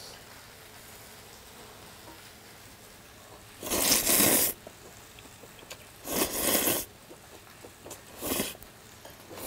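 A man slurping cold spicy mixed buckwheat noodles (bibim makguksu): three slurps, the first, a little before the middle, the longest and loudest, then two shorter ones.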